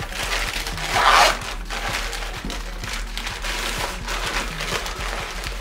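Plastic packaging crinkling and rustling as it is unwrapped by hand, loudest about a second in.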